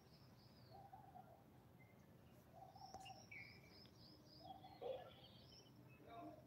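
Near silence with faint birdsong: short runs of quick, high, falling chirps, heard three times.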